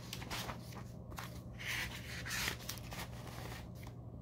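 Paper sheets in a binder being handled and turned, giving soft rustles and swishes with a few light clicks, the loudest about two seconds in.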